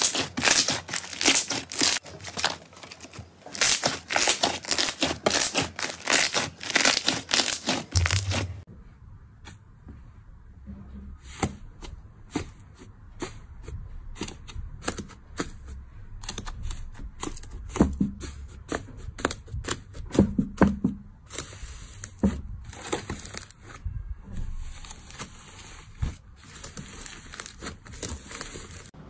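Hands stretching and kneading slime: a fluffy purple slime gives dense, loud crackling and tearing pops for the first eight seconds or so. It then changes to quieter, scattered crackles and soft squishes as a hand presses through a pink slime whose red crust breaks into flakes.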